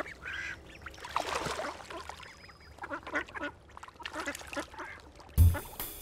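Many ducks quacking in short, overlapping calls. About five seconds in, loud music with a heavy low beat cuts in over them.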